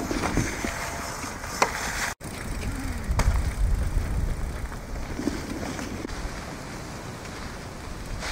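Mountain bike rolling over a gravel path, with a low rumble and a few clicks from the phone being handled outdoors; the sound drops out for a moment about two seconds in.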